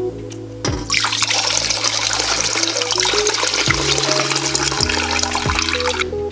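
Ramen pork broth poured from a ladle through a fine mesh strainer into a stainless stockpot, a steady splashing pour that begins about a second in and stops just before the end. Background music plays throughout.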